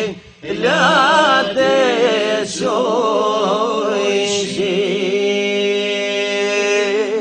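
A man's voice singing a religious song in a melismatic, chant-like style, with wavering ornamented runs after a short breath near the start. It then holds one long, steady note through the second half.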